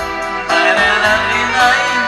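Instrumental backing track playing, with guitar and a regular beat, and a melody line coming in about half a second in.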